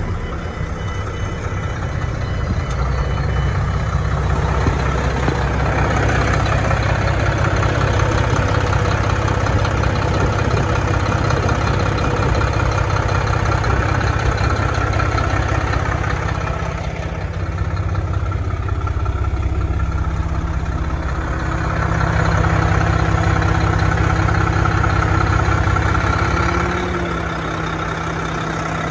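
A Mack MP8 inline-six diesel engine idling steadily. A faint rapid beeping sounds through the first few seconds.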